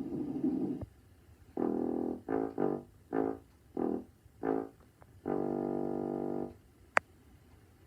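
A short brass-like tune, trombone-like in tone: a string of short notes followed by one long held note. Before it, a noisy rushing sound cuts off just under a second in, and a single sharp click comes near the end.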